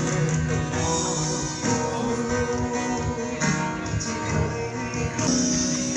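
Music with guitar, its plucked and strummed notes held steady throughout.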